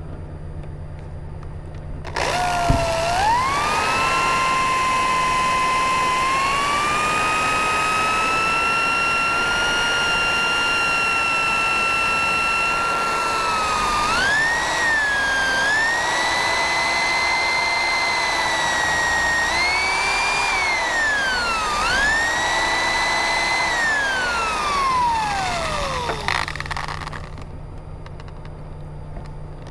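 Electric drill with a 1/8-inch bit boring pilot holes in an RV screen door frame. The motor whine starts about two seconds in and rises in pitch as it speeds up, changes speed several times, then winds down and stops a few seconds before the end. It starts up again right at the end.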